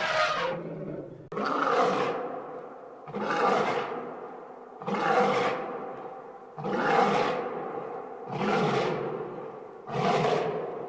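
A roaring sound effect, repeated at an even pace about every 1.7 seconds, each roar starting suddenly and fading away.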